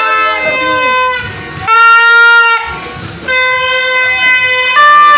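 A wind instrument blowing loud, long held notes, each about a second long with short breaks between, and a higher note near the end.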